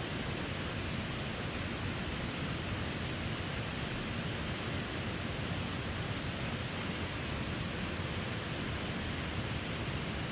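Steady rushing noise of falling water from a waterfall, even and unbroken.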